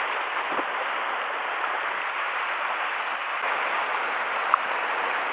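Sea waves breaking and washing against rocks, a steady rush of surf. One short, brief blip sounds about four and a half seconds in.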